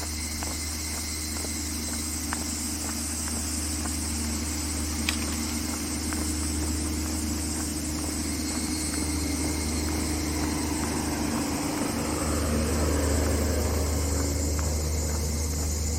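Outdoor ambience with a steady low rumble and an even high hiss, and light footsteps ticking throughout, with one sharper click about five seconds in.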